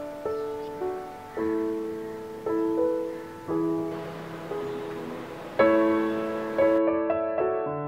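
Background piano music: a slow, gentle melody of struck notes and chords, each fading away before the next.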